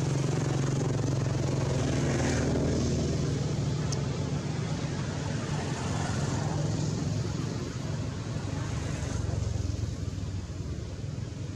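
Steady engine noise of passing road traffic, a low hum under a noisy wash that swells a couple of seconds in and again around six seconds.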